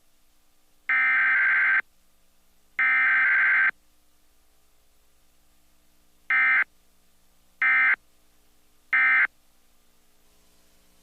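Emergency Alert System (SAME) digital data tones from a Required Weekly Test: two long raspy bursts of about a second each, the header code, then after a pause three short bursts about 1.3 s apart, the end-of-message code.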